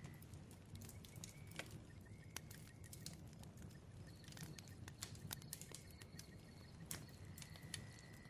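Bonfire crackling quietly: irregular sharp pops and snaps over a low rumble of burning, with a faint high steady trill coming and going.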